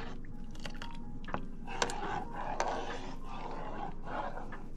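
A plastic spoon stirring milk in a pot: repeated swishing, scraping strokes about once a second, with a few sharp clicks where the spoon knocks against the pan.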